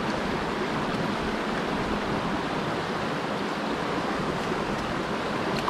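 River water rushing steadily, an even unbroken rush of current.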